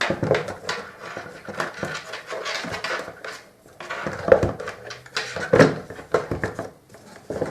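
Irregular plastic knocks and clatter as a new vacuum cleaner motor in its rubber mount is pushed and worked into the guides of the Samsung SC4520's housing. The sharpest knocks come in the second half.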